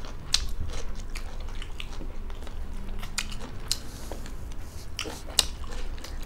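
Close-miked eating sounds: chewing of rice and fried chicken gizzard eaten by hand, with scattered small wet clicks and crunches.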